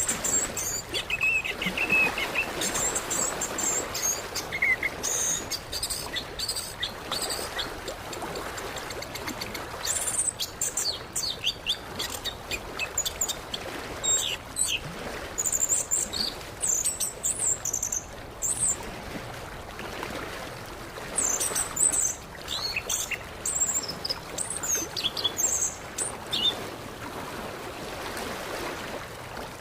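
Orange-headed thrush (anis kembang) singing a rapid, varied run of short, sharp chirps and high whistles, over a steady background hiss.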